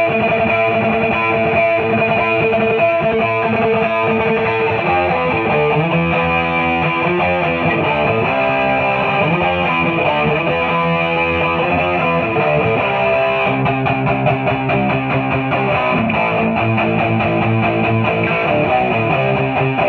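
Gibson Les Paul Studio electric guitar played through a Boss SD-1 overdrive into a Marshall DSL40C amp, sounding distorted chords and riffs continuously, with a change of part about two-thirds of the way through.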